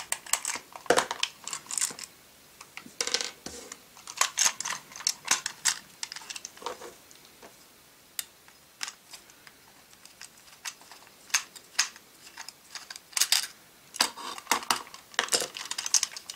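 Small screwdriver backing screws out of a vintage Micronauts Microtron's plastic body, with light, irregular clicks and taps of metal on plastic as the toy is turned and handled. The clicking is busiest at the start and again near the end, with a sparser stretch in the middle.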